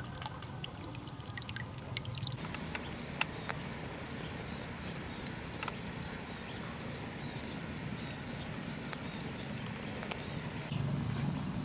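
A shallow stream trickling for about the first two seconds, then a wood fire burning under a cooking pot: a steady hiss with a few sharp, separate crackles and pops from the burning sticks.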